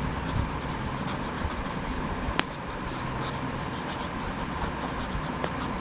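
Pen writing on paper, a string of faint short scratches as words are written out, over a steady background hum. There is one sharper click a little before halfway.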